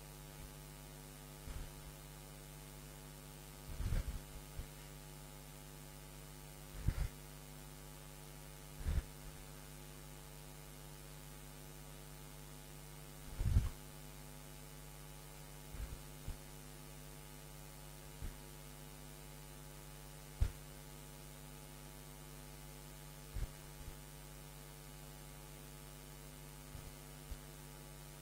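Steady low hum made of many fixed tones, like mains hum in the recording. It is broken by short, soft low thumps at irregular moments, every two to four seconds.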